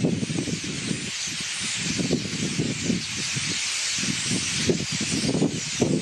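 A flock of common starlings chattering together in a tree, a dense, steady high chatter from many birds at once, with irregular low rumbles underneath.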